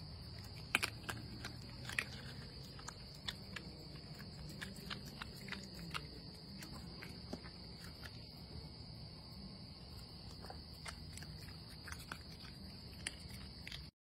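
Raccoon eating from a plastic slow-feeder bowl: irregular small clicks and crunches of chewing and of its paws and snout knocking on the plastic, over a steady high trill of night insects.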